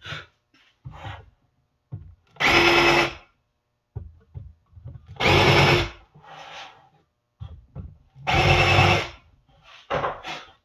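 Cordless drill boring pilot holes into wooden boards in three short runs of under a second each, with small knocks and handling sounds of the wood between them.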